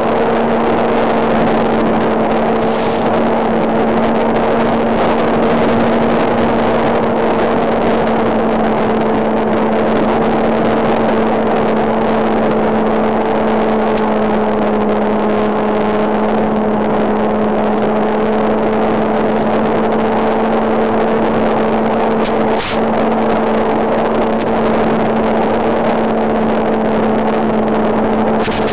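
Engine of a radio-controlled model Spitfire running at a steady high pitch, heard as a constant drone with a hissing edge, with a couple of brief crackles.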